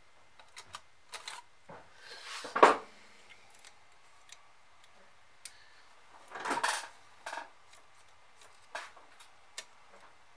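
Hands working on a Bose multi-CD changer under repair: scattered small plastic and metal clicks, a loud knock about two and a half seconds in, and a brief scraping clatter near the middle.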